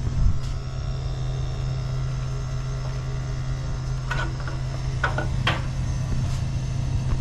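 Gas burner of an A.O. Smith Burkay copper-coil commercial water heater running just after ignition: a steady hum and low rumble, with a few light clicks about four to five and a half seconds in.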